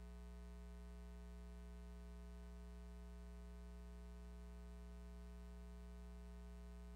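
Steady low electrical hum with faint hiss, otherwise near silence.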